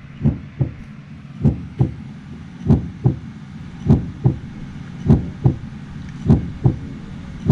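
Heartbeat sound effect: steady paired low thumps, lub-dub, repeating about every 1.2 seconds.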